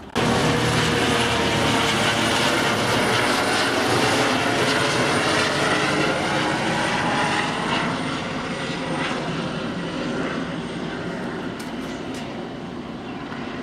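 Helicopter flying low overhead: rotor and turbine sound that starts abruptly just after the start, loud for about seven seconds with its whine slowly falling in pitch as it passes, then fading away.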